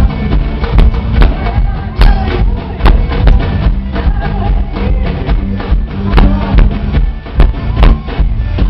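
Live forró band playing loud: electric bass, keyboards and a steady drum beat, with a singer's voice over them.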